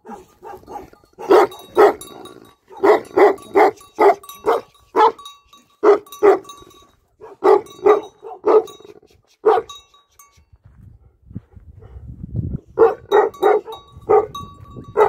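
Tibetan Mastiff barking: deep, loud barks in quick runs, about two a second, breaking off for a couple of seconds about ten seconds in and starting up again near the end.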